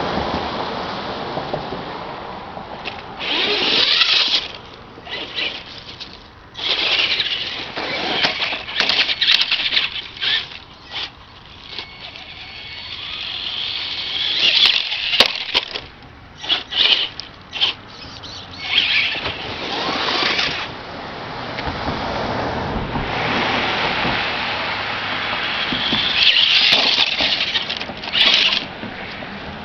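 Traxxas Grave Digger RC monster truck's electric motor whining in repeated bursts as it speeds up and lets off, with its tyres running over gravel.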